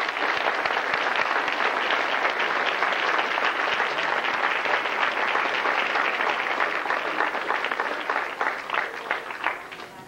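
Audience applauding: dense clapping that thins out to a few scattered claps near the end.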